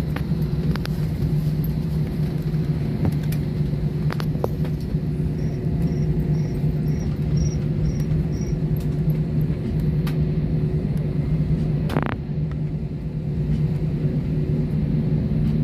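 Cabin noise inside a jet airliner taxiing after landing: a steady low hum over the rumble of the engines and air system. About halfway through comes a run of seven short, faint high beeps, and near the end a short knock.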